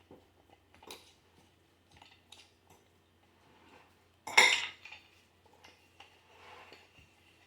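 Metal parts of a manual meat grinder clinking and clacking as it is assembled: scattered light clicks, with one loud metallic clank about four seconds in.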